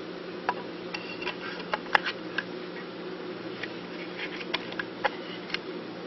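Irregular small clicks and taps of plastic parts and wires as the vacuum's motorized brush head is handled and fitted back together, the sharpest click about two seconds in, over a steady low hum.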